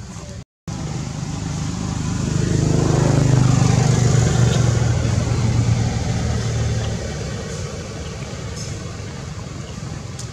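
A motor vehicle passing by: its engine hum grows louder over a couple of seconds, holds, then fades away by about seven seconds in. The sound cuts out completely for a moment just before it starts.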